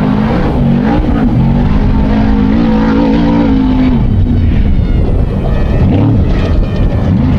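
Off-road race truck engines running hard, the pitch holding steady for a while, dropping about four seconds in, then rising and falling a few times as the trucks rev and pass.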